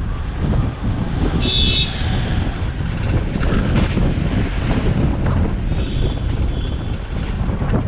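Steady wind buffeting on the microphone and low road rumble of a moving car. A short, high, multi-toned horn beep sounds about one and a half seconds in, with a fainter one around six seconds, and a few sharp clicks in between.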